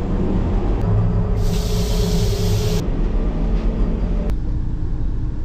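Steady running rumble of the Vande Bharat Express inside the coach, with a loud hiss lasting just over a second, starting about one and a half seconds in. Near the end the higher part of the noise drops away suddenly.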